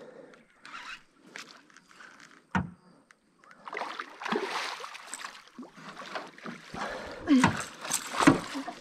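A hooked barramundi splashing and thrashing at the surface beside a small boat, the water noise starting about three and a half seconds in and loudest near the end. A single sharp knock comes a little before the splashing begins.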